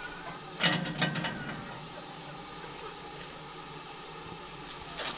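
Steady hiss of steam escaping from GWR 94XX pannier tank locomotive No. 9466, with two sharp knocks about a second in.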